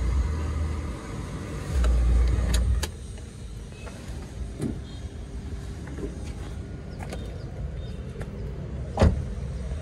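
Rumbling handling noise inside a car's cabin, heavy twice in the first three seconds, then a few light clicks and one sharp knock about nine seconds in.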